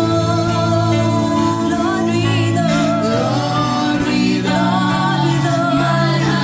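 Woman singing a slow gospel worship melody with wavering held notes over sustained backing chords.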